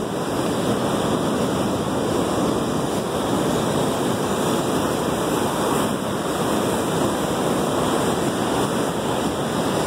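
Ocean surf breaking along the rocks of a stone jetty, a steady rush of waves.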